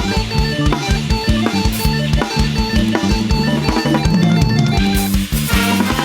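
Thai trae wong brass band playing a fast, upbeat number: held instrument notes over a drum kit keeping a steady quick bass-drum beat, about four hits a second, with snare. The cymbals get brighter near the end.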